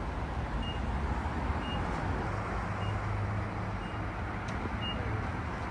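Inside an Acura TLX's cabin: a steady low rumble from the car, with a faint high warning chime beeping about once a second.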